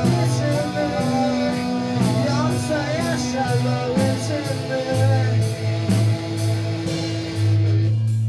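Rock band playing a song on a rough demo recording: electric guitars, bass guitar and drums with regular cymbal strikes, and a sung vocal line with bending pitch over the first few seconds.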